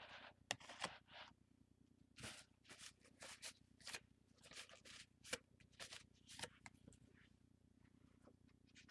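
Faint short scrapes and clicks of a card working shaving cream in a plastic tub: a quick irregular run of scratchy strokes that thins out after about seven seconds.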